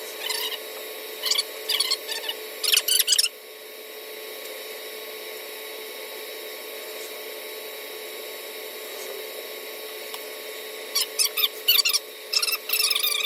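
Short, squeaky scrubbing strokes on steel as the root weld of the pipe coupon is cleaned, in two bursts with a steady hiss between them.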